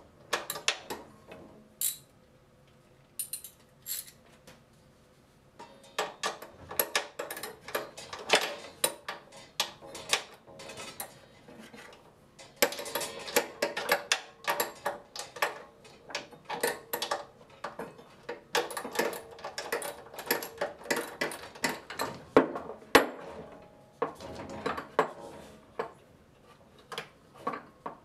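Irregular metallic clinks, taps and rattles of hand tools and loose hardware against a small band saw's metal frame and wheel parts as it is being taken apart. The clicks come thick and fast through the middle and thin out again near the end.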